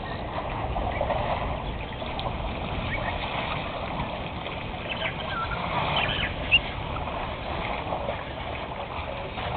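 Water sloshing and splashing as a herd of African elephants wades and drinks in a waterhole, with a few short bird calls around the middle and a single sharp click about six and a half seconds in.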